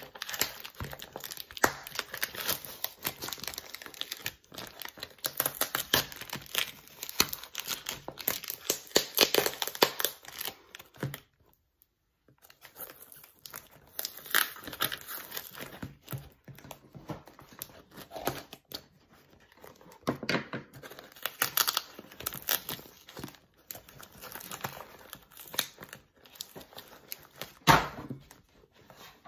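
Packing tape being peeled and ripped off a cardboard shipping box, with crinkling of the wrapping. The tearing is dense for about the first ten seconds, stops briefly, then comes in shorter rips, with one loud rip near the end.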